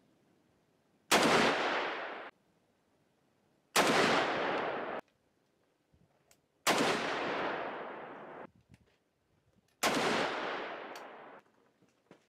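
Four shots from a Henry Side Gate lever-action rifle in .45-70, about three seconds apart, each a sharp crack followed by a long echoing tail that cuts off abruptly. Faint clicks sound between the shots.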